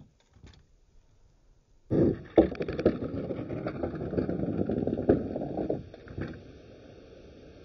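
Die-cast toy monster trucks rolling, a scraping rumble with a few sharp clicks that starts suddenly about two seconds in, runs about four seconds and then fades.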